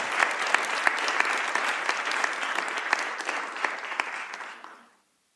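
Audience applauding, a dense patter of many clapping hands that dies away about four and a half seconds in, with a brief low thump right at the start.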